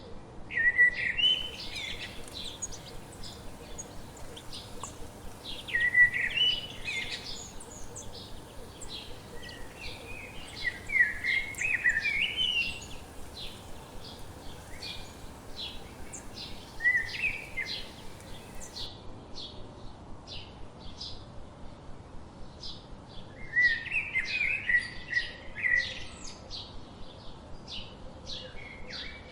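Several songbirds singing in a forest: one bird repeats a loud warbling phrase every few seconds, five times in all, while short high chirps from other birds keep up steadily between them.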